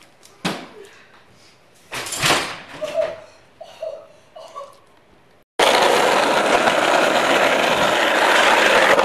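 A few sharp knocks and clacks from skating, then, after a sudden cut about five and a half seconds in, a loud steady rushing noise from hard skateboard wheels rolling on rough pavement.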